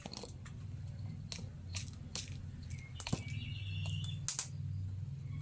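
Firewood crackling in a wood-fired hearth under a cooking pot: scattered sharp pops and snaps over a low steady rumble.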